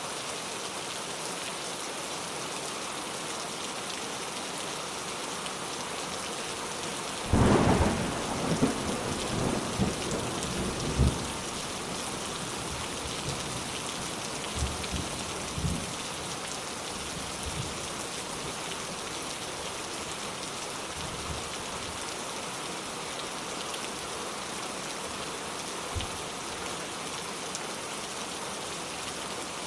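Steady rain falling, with a clap of thunder about a quarter of the way in: a sudden sharp crack followed by several seconds of uneven rumbling that dies away in a few softer rolls.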